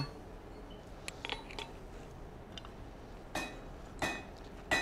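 Three light metal-on-metal clinks with a short ring, after a few faint ticks, as steel tongs and calipers touch a hot iron staple on the anvil while its width is checked.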